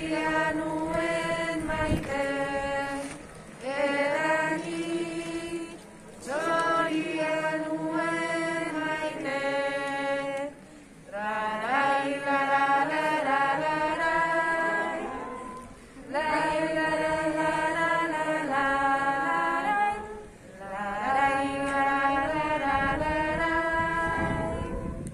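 Slow singing in long held notes, phrases of a few seconds each with short breaks between them.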